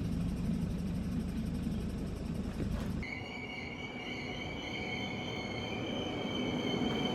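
Passenger train running, a low even rumble. About three seconds in it changes abruptly to a steady high-pitched squeal of several tones, held to the end.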